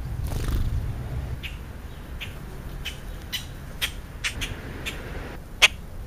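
House sparrows chirping out of view: about nine short, sharp chirps at irregular intervals, the loudest near the end, over a steady low rumble.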